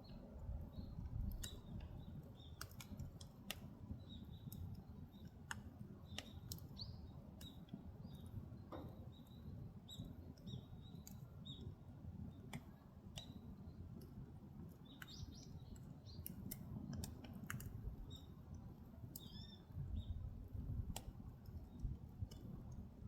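Firewood burning in the agungi firebox of a traditional Korean ondol house: a steady low rumble of the flames with irregular sharp crackles and pops, and scattered short, faint high chirps.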